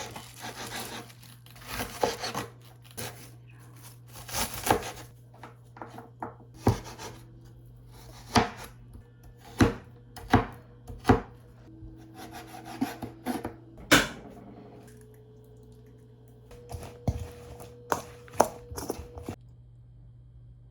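Knife chopping on a cutting board in scattered, irregular single strokes, over a steady low hum. It stops a little before the end.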